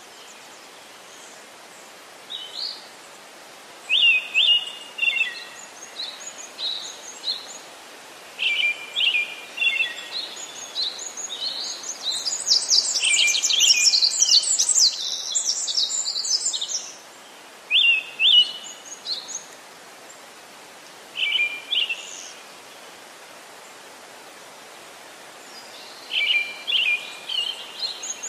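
Songbirds chirping: short calls every few seconds, with a dense run of chirps around the middle, over a steady hiss.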